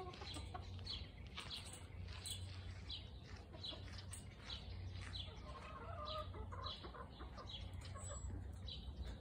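Backyard hens clucking softly, with short high chirps repeating about twice a second over a steady low background hum.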